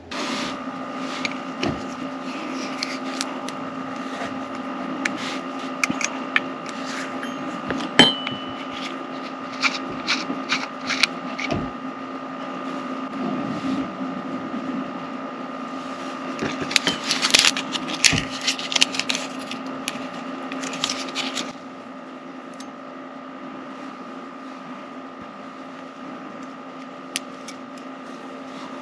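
Small clicks, scrapes and plastic rustles of hands unscrewing an external tyre pressure monitoring sensor and swapping its coin-cell battery, over a steady hum. The handling noise is busiest early and stops about 21 seconds in, leaving the hum alone.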